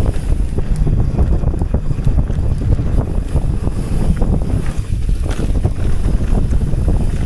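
Wind buffeting the microphone of a riding mountain biker, over the steady rumble and frequent rattling knocks of a Commencal trail bike's tyres and frame running fast down a rough dirt trail.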